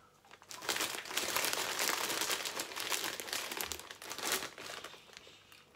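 Plastic popcorn bag crinkling as a hand rummages inside it for popcorn, beginning about half a second in and dying away near the end.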